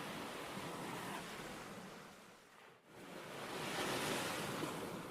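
Sea waves washing on a shore: one wave sweeps in and fades away about two and a half seconds in, then a second swells up, peaks about four seconds in and starts to die down.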